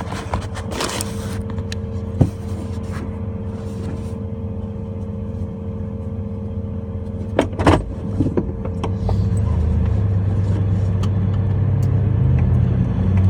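Car engine and road noise heard from inside the cab, a steady low hum with a couple of sharp knocks. About three-quarters of the way through, the engine grows louder as the vehicle pulls away.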